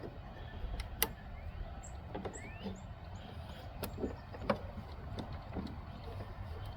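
Scattered clicks and knocks of pliers and hands working at the plastic tabs that hold a Lawn Boy mower's self-propel drive cable, over a low steady rumble.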